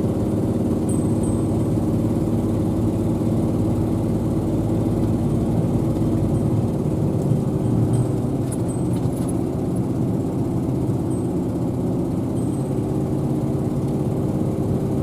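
An engine running steadily at an even pitch, with a low rumble beneath.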